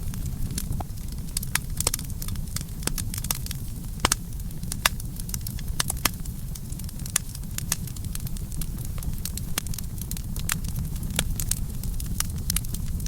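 Campfire burning, a steady low rumble of flames with irregular sharp crackles and pops of burning wood.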